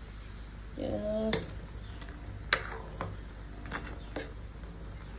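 Prawns boiling vigorously in a stainless-steel pot, with a steady bubbling hiss. A metal ladle stirring in the pot clicks and knocks against it several times.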